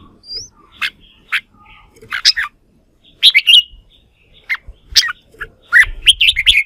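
Red-whiskered bulbul singing: short, loud chirping phrases in clusters with brief pauses between them.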